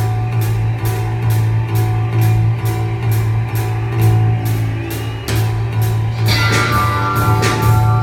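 Instrumental rock-style music from a robot band of mechanically played electric guitar, bass and drums: a steady low bass note held under a regular high tick about three times a second. About six seconds in, the music swells with brighter, higher notes.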